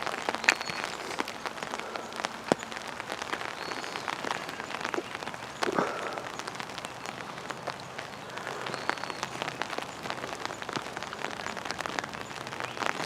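Light drizzle pattering on an umbrella overhead: a dense, irregular scatter of small drop ticks over a soft hiss. A few short, high bird calls come through every few seconds.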